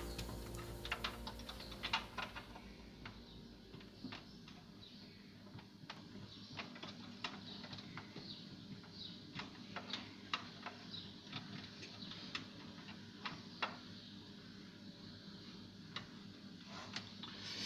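Faint, irregular light clicks and taps, a few sharper than the rest, with a louder knock at the very end.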